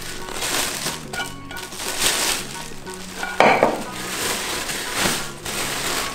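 Plastic wrap and packing paper rustling and crinkling as a cooking pot is unwrapped, with a louder knock or clink of the pot about three and a half seconds in.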